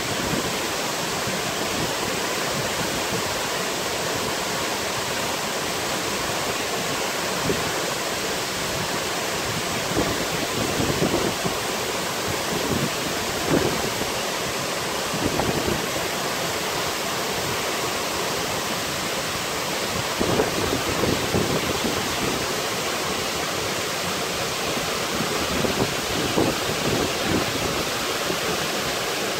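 Waterfall pouring into a plunge pool: a steady, even rush of falling water, with a few brief louder swells.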